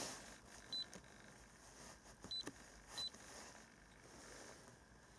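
Three short, high electronic key beeps from an iCarsoft i930 diagnostic scan tool as its menu buttons are pressed: one about a second in, then two close together around two and a half to three seconds. Faint button clicks are heard, over faint room tone.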